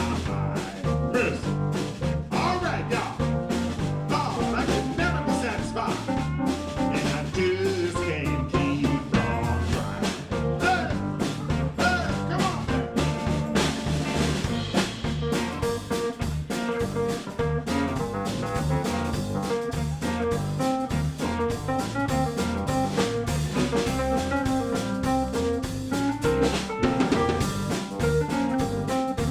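Live electric blues band playing an instrumental passage without vocals: drum kit keeping a steady beat under bass, electric guitar and keyboards.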